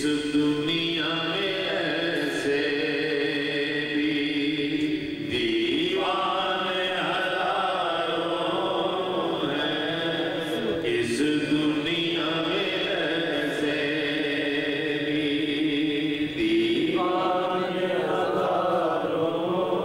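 A man's voice chanting devotional verses without accompaniment, in long drawn-out phrases with held, wavering notes; a new phrase starts about every five or six seconds.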